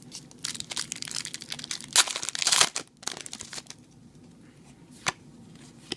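Foil wrapper of a Yu-Gi-Oh booster pack crinkling and tearing as it is opened, with sharp rips about two seconds in. After about three and a half seconds it goes quieter, with a single click near the end.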